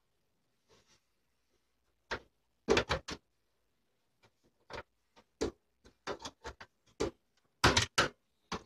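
Irregular sharp clicks and knocks, some in quick groups and busier in the second half: RAM modules and their slot latches being handled and pushed in as memory is reseated on a desktop motherboard.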